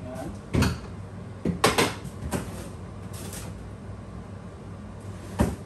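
Knocks and clatter of a bowl and stored items being put away and moved about in a kitchen cupboard: a handful of sharp knocks, the loudest a close pair about a second and a half in, and one more near the end.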